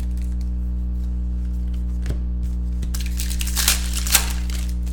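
Foil trading-card pack wrappers crinkling and tearing as they are ripped open by hand, over a steady low hum. The loudest rips come at about three and a half and about four seconds in.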